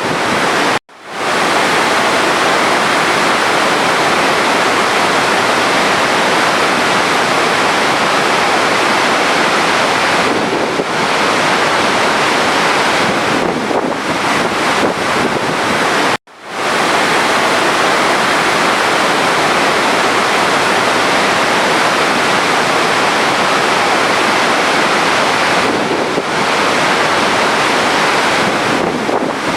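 Steady rush of running water, a dense even hiss, that cuts out abruptly twice, about a second in and about halfway through, and fades back in each time.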